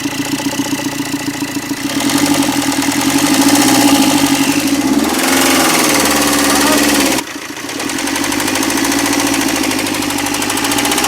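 Tata Zest diesel engine running with a knocking 'thak thak' noise, which the owner finds quietens when the number 4 injector's wire is unplugged. The revs rise and fall in the middle, and the sound changes abruptly about seven seconds in.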